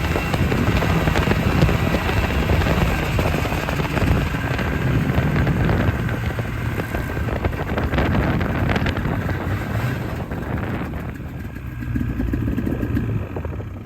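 A small vehicle's engine running while under way, dying down in the last few seconds.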